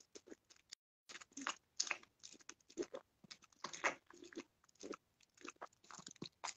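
Small dog chewing and crunching on a vet-prescribed medicine fed from the fingers, in irregular crisp crunches and mouth clicks a few times a second.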